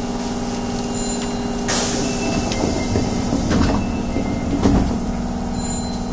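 Osaka Municipal Subway 22 series train standing at a platform with a steady electrical hum. A short hiss of air comes about two seconds in, then several thumps as the sliding doors close.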